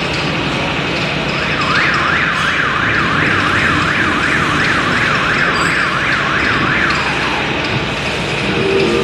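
Overhead crane's electronic warning siren, a warbling tone rising and falling about twice a second, sounding for about five seconds over a steady mechanical hum.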